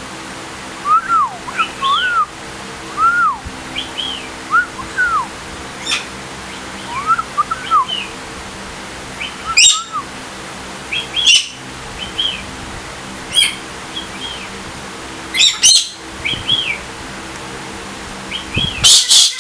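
Galah calling: a run of short, arched chirps, roughly one or two a second, broken by a few sharp harsh calls, with a loud squawk starting near the end.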